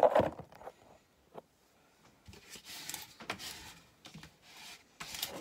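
Hand rubbing and smoothing a diamond-painting canvas covered with a plastic protective film, a scratchy brushing rustle that comes in patches with a short pause, ending in a louder, sharper rustle.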